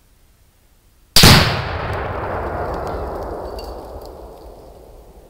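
Tannerite exploding target detonating when shot: a single sharp blast about a second in, followed by a long echo that fades over about four seconds.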